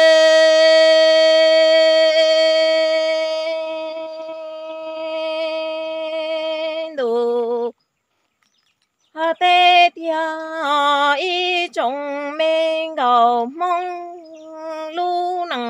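A woman singing Hmong kwv txhiaj, unaccompanied. A long held note falls away and stops about seven seconds in, and after a short pause she starts a new phrase of quick, wavering, ornamented notes.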